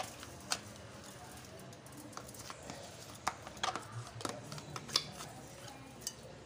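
Scattered light clicks and knocks against a stainless steel pan as butter is put into it, about eight over the few seconds, over a faint background.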